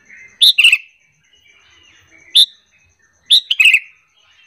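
Sooty-headed bulbul calls: loud, sharp, short notes in quick groups, two about half a second in, one a couple of seconds later and three near the end, with fainter chattering notes between them.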